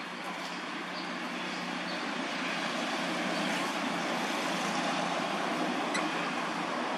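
Steady motor-vehicle noise, slowly growing louder, as of a vehicle approaching.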